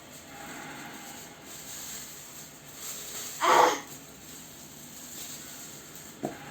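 Glue being squeezed out of a plastic bottle, with one short, loud sputter of air and glue about halfway through and a light click near the end.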